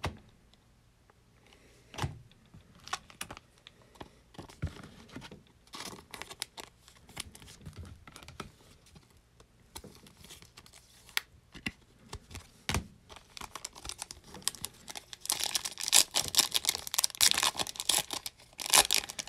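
Trading cards being handled, with scattered soft clicks and taps. From about fifteen seconds in, a plastic card-pack wrapper crinkles densely as it is torn open.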